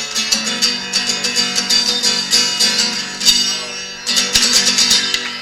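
Guitar strumming the closing chords of a song, with a short break about four seconds in before the chords go on.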